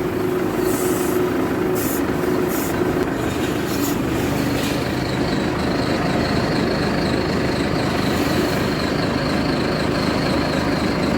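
Terex backhoe loader's diesel engine running steadily, with a few short hisses in the first seconds and a thin high whine joining about four seconds in.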